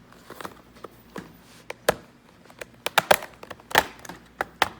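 Plastic bottom case of a Lenovo Flex 3 laptop being pried off, its retaining tabs unsnapping in a series of sharp, irregular clicks and snaps, the loudest near the middle and toward the end.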